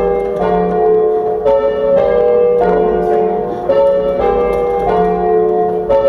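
Ring of three church bells, the tenor about 12 cwt in F, rung full-circle by rope. The bells strike one after another about every half second, each note ringing on under the next, heard from the ringing chamber below the bells.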